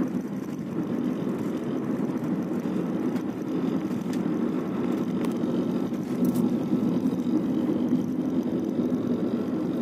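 Steady low rumble of road and engine noise heard inside a car's cabin as it cruises along at an even speed.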